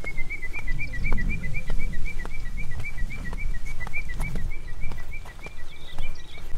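A bird calling in a long, even series of short notes, about five a second, alternating between two close pitches, that stops about six seconds in. Footsteps knock on a wooden boardwalk underneath.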